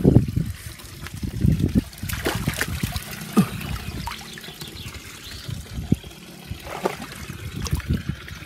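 Hand stirring and dabbling in shallow muddy water, with small splashes, drips and trickling.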